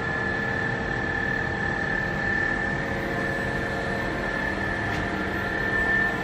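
FANUC Robodrill Alpha T14iD CNC drill-tap machining center running: a steady mechanical hum with a high, steady whine over it.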